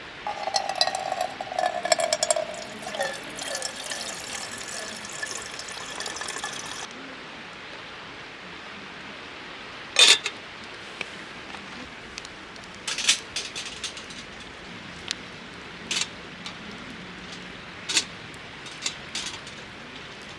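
Water being poured into a container for about seven seconds, with a pitched gurgling tone, stopping abruptly; then a handful of separate sharp clicks or knocks.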